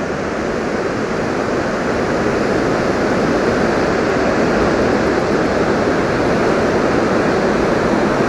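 Large waterfall rushing: a steady roar of falling water that grows slowly louder.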